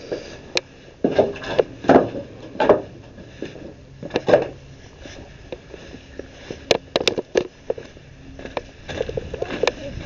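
Footsteps crunching over plastic sheeting and dry plant stalks: irregular crunches and crinkles, with a few sharp clicks about seven seconds in and a quicker run of rustling near the end.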